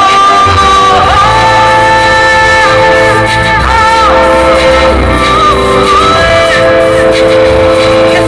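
A rock band playing live, with a singer holding long, wavering notes over guitar, bass and drums.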